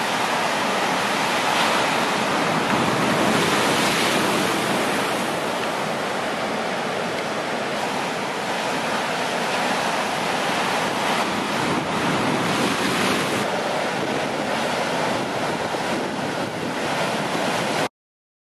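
Ocean surf breaking and washing, with wind buffeting the microphone. It cuts off suddenly near the end.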